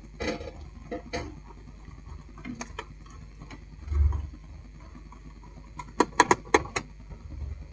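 Sheet-metal top cover of a satellite receiver being pressed and shifted into place by hand: scattered metallic clicks and knocks, a dull thump about four seconds in, and a quick run of sharp clicks about six seconds in.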